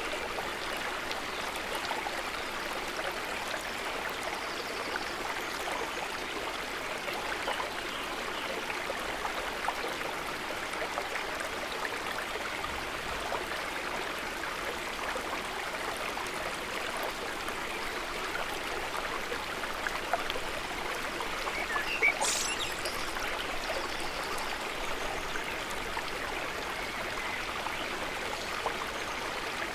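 River water flowing steadily over stones, a continuous rushing with fine trickling and bubbling. One brief sharp high sound cuts through about two-thirds of the way in.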